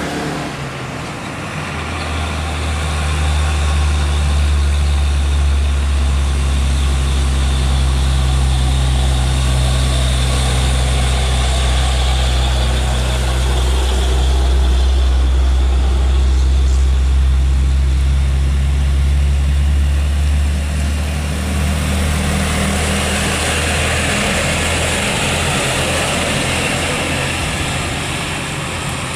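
Heavy truck's diesel engine running with a steady, low-pitched drone. About two-thirds of the way through, the drone weakens and gives way to a broader hiss of road noise.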